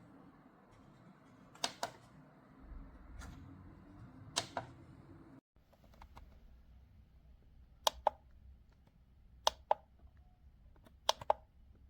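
Small plastic button clicked in pairs, a press and a release about a fifth of a second apart, five times at roughly one-and-a-half-second intervals.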